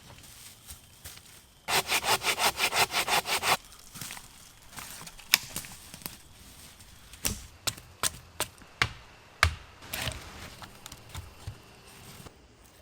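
Hand saw cutting wood in quick back-and-forth strokes, about five a second, for roughly two seconds. Scattered sharp knocks and clicks follow.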